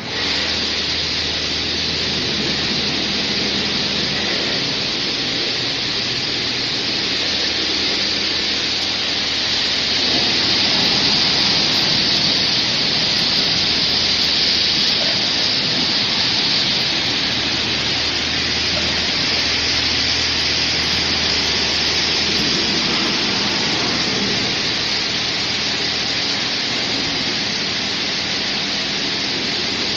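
High-pressure water jets of a touchless automatic car wash spraying steadily, a loud even hiss over a low pump hum. The spray comes on abruptly at the start.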